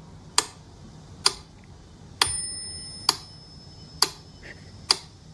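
Clock-like ticking: sharp, evenly spaced ticks a little more than one a second. About two seconds in, one bell-like ding rings out and fades over about a second.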